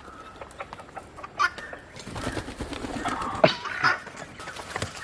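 Chickens clucking, with scattered short calls; the loudest call comes about three and a half seconds in.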